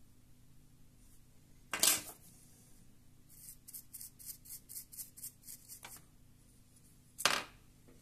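A small bristle brush scrubbing the plastic housing of a Plantronics Voyager Edge headset in about ten quick, scratchy strokes, about four a second. A sharp knock comes a couple of seconds before the brushing and another near the end.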